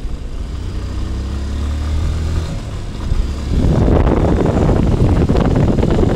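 Motorcycle engine running steadily under light throttle, its note rising slightly. About three and a half seconds in, loud wind noise buffeting the microphone at road speed covers it.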